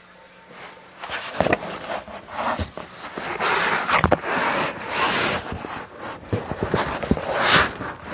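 A cardboard shipping box being opened by hand: rustling and scraping of cardboard with sharp clicks and knocks, starting about a second in.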